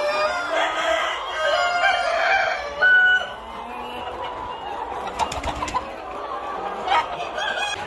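A large flock of native country chickens clucking and calling over one another, with many overlapping calls. The calling is densest and loudest for the first three seconds or so, then thins to scattered, quieter calls.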